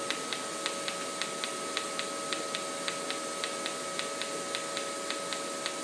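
OrbitalChamp orbital TIG welding device running just after the start button is pressed, welding around the pipe. It gives a steady tone over a hiss, with a light regular tick about three times a second.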